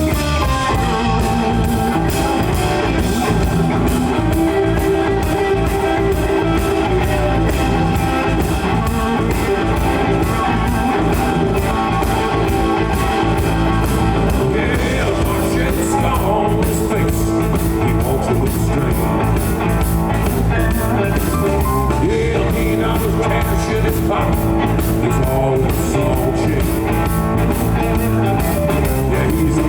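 Live rock band playing: guitar over a steady drum-kit beat.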